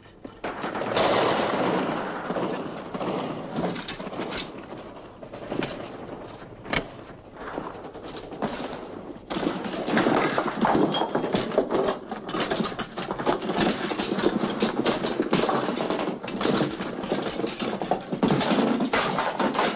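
Automatic gunfire: rapid bursts of machine-gun shots, sharp cracks and rattles coming thick and fast, thinning for a few seconds in the middle, then dense again.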